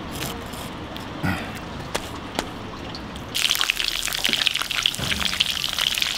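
A few sharp knocks. Then, about halfway, pieces of raw eel start sizzling and crackling in hot ajillo oil in a small cast-iron skillet over a charcoal grill.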